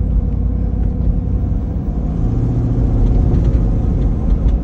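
Supercharged Toyota 5.7-litre V8, swapped into a 4Runner, running under way with road noise, heard from inside the cabin as a steady low rumble.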